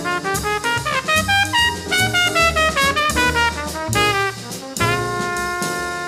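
Bebop jazz recording: a fast horn line over bass and drums, closing about five seconds in on a long held final chord with a cymbal wash.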